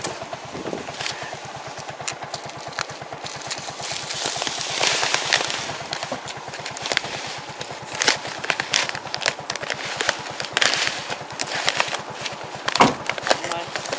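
Scissors cutting open heavy paper fertilizer sacks, with crinkling and rustling of the sack paper and scattered sharp snips, over an engine idling steadily.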